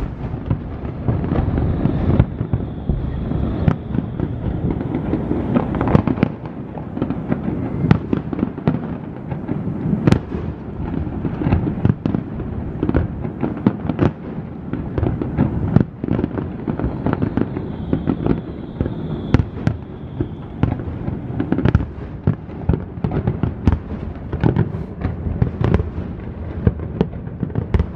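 Fireworks display: aerial shells bursting one after another in a dense, irregular barrage, many sharp bangs and cracks over a steady low rumble.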